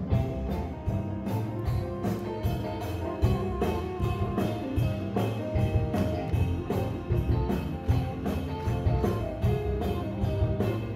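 Rock-and-roll music with a steady, driving drum beat: the instrumental dance break of a stage musical number.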